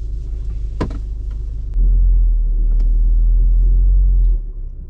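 2013 Volkswagen Golf R's turbocharged four-cylinder engine and road noise rumbling inside the cabin on the move, getting clearly louder about two seconds in and easing off near the end. A single sharp click about a second in.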